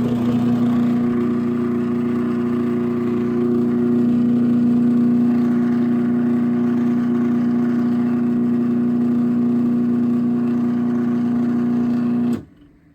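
Craftsman 1/2 hp chain-drive garage door opener (model 139.53930DM) running steadily with a strong hum as it raises the door, then cutting off abruptly near the end.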